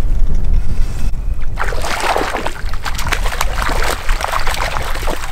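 A hooked cutbow trout splashing and thrashing at the surface of the water, a rapid crackling spatter that starts about a second and a half in and lasts about three seconds. Wind rumbles on the microphone throughout.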